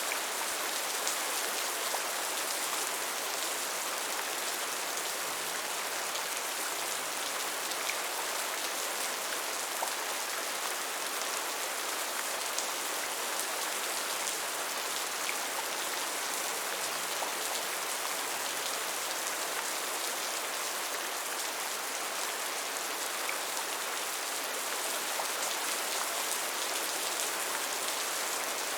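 Steady rain falling, an even hiss with many fine drop ticks, holding level with no change.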